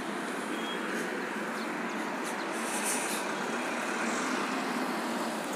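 Steady engine drone of machinery or vehicles running nearby, with no clear change in pitch or level.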